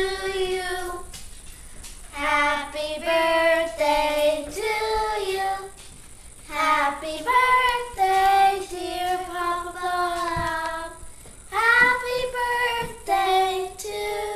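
Young girls singing a song without accompaniment, in held notes broken by short pauses.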